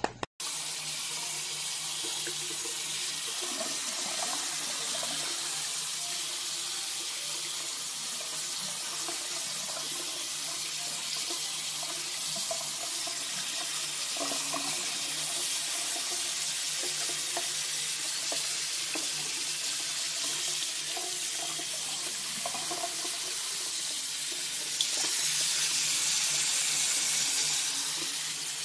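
Steady rush of running water, louder for about three seconds near the end.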